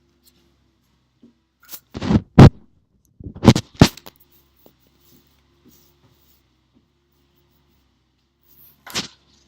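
Several loud knocks and scrapes: one cluster about two seconds in, another about three and a half seconds in, and one more near the end, with quiet between them.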